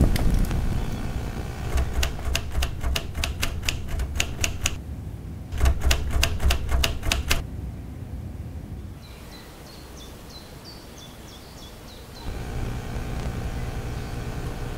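Typewriter keys clacking in two quick runs of keystrokes, with a short pause between them about five seconds in.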